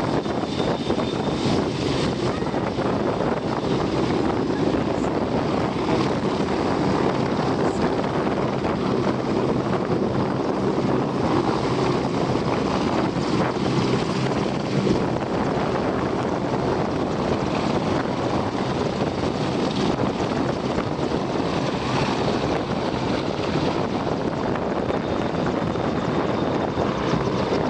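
AgustaWestland AW101 Merlin helicopter in flight, its five-bladed main rotor and turboshaft engines making a steady, even noise.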